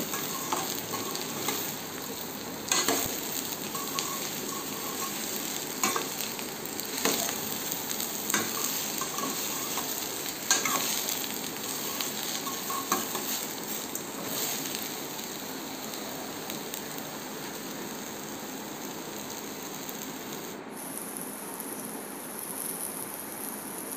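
Ridge gourd pieces sizzling in hot oil in a stainless steel pan while being sautéed with a steel spatula, which scrapes and knocks against the pan now and then, mostly in the first half.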